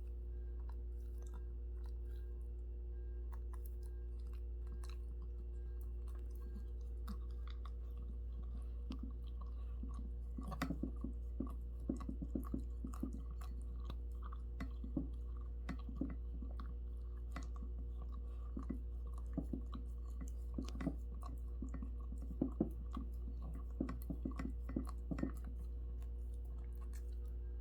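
A pet chewing its food, in irregular bouts of short sharp clicks that begin about a third of the way in and go on until near the end, over a steady low electrical hum.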